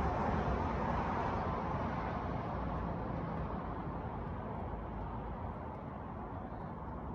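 Road noise from a passing vehicle: a steady rush of tyres on pavement that slowly fades away.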